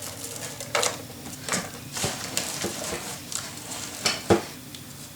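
Paper and adhesive tape being handled: light rustling with scattered small clicks and taps, and one sharper click about four seconds in.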